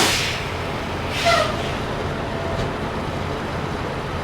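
Semi-truck's diesel engine running, heard from inside the cab as a steady low hum. There is a brief hiss about a second in.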